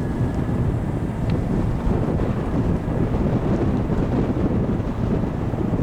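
Steady wind buffeting the microphone over the low rumble of a vehicle driving along.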